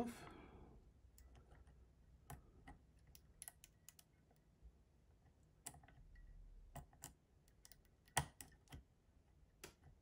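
Faint, irregular metal clicks of a dimple flag pick working the pins of a brass Lathams 6-pin dimple lock cylinder, after the pick slipped off a pin; about ten scattered clicks, the loudest about eight seconds in.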